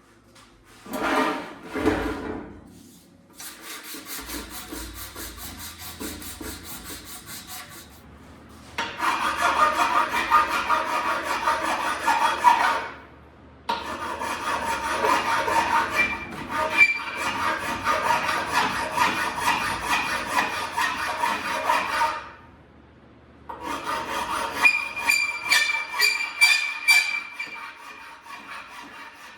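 Steel being worked with an abrasive tool, a harsh rasping scrape with a metallic ring, in several long passes of a few seconds each with short pauses between them.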